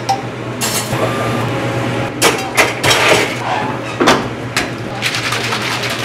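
A bubble tea being made in a plastic shaker cup: a long bar spoon stirring and knocking in the cup, the lid being fitted, then quick rattling strokes near the end as the shaker is shaken. A steady hum runs underneath.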